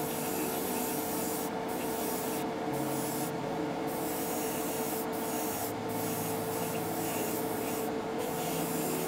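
Airbrush spraying paint, a steady hiss that cuts out briefly several times as the trigger is let off, over a steady motor hum.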